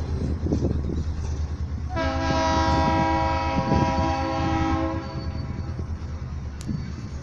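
Freight train's covered hopper cars rolling past with a steady low rumble and wheel clatter. A multi-tone train horn sounds for about three seconds, starting about two seconds in.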